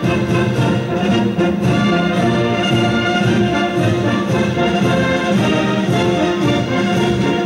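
A brass band playing music with long held notes.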